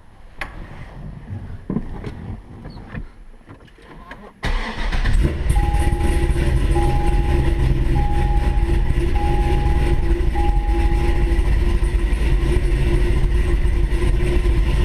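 A few clicks and knocks, then about four and a half seconds in the 2005 Chevrolet Corvette C6's V8 starts and settles into a steady idle: it now starts after a battery disconnect and reconnect. A warning chime beeps five times, evenly spaced, soon after the engine catches.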